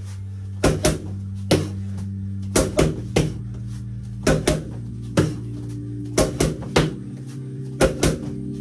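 Boxing gloves smacking focus mitts in quick combinations of two to four punches, with gaps of about a second between combinations. Background music plays steadily underneath.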